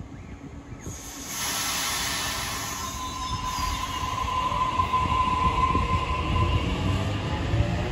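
Sydney Trains Waratah double-deck electric train running through the station, its wheels on the rails giving a rising hiss and rumble. A steady high-pitched squeal holds through the middle, then the low rumble grows stronger near the end.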